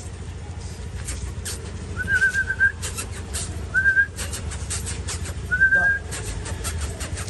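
Three short, high, pure whistles: a warbling one about two seconds in, then two brief ones near four and six seconds. They sound over a steady low rumble and a scatter of light clicks.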